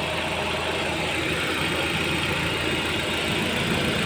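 Suzuki Swift Dzire idling with the air conditioning running: a steady engine hum under a constant hiss, with the strange electronic-like noise that comes with the AC switched on, which the owner is unsure is normal.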